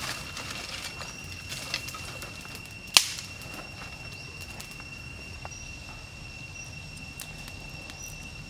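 Twigs and firewood crackling and snapping at a small campfire, scattered light clicks with one sharp crack about three seconds in, over a steady high-pitched insect buzz.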